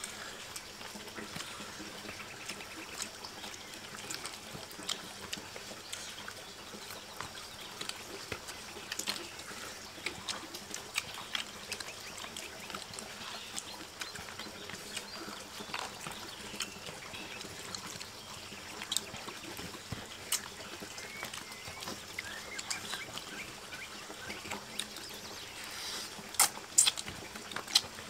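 Steady trickling, running water, with scattered small clicks and knocks throughout and a louder cluster of clicks near the end.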